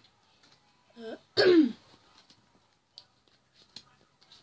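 A boy clearing his throat, a two-part "ahem": a short first sound, then a louder one falling in pitch about a second and a half in. A few faint clicks of trading cards being handled follow.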